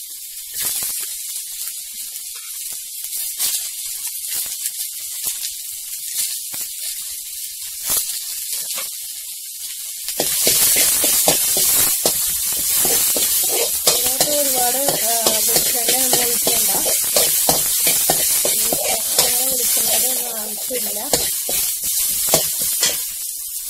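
Sliced onion and garlic sizzling in coconut oil in a steel pan, stirred with a spatula that scrapes and taps the pan. The sizzle gets louder about ten seconds in.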